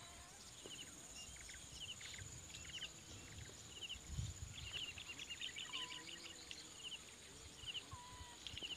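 Faint outdoor ambience with scattered clusters of short, high chirping calls from small animals, a few short whistled notes, and a brief low rumble about four seconds in.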